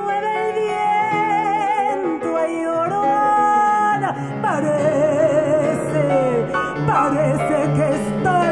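A woman sings live with wide vibrato, holding long notes and sliding down from high pitches, over piano accompaniment.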